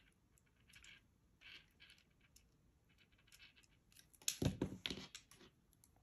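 Faint clicks and rustles of small jewelry pliers and wire being handled on a tabletop, with a louder cluster of metal clicks and knocks a little past four seconds in.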